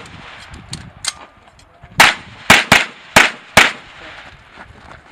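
Pistol fired in quick succession: two fainter shots about a second in, then five loud shots in about a second and a half starting around two seconds in.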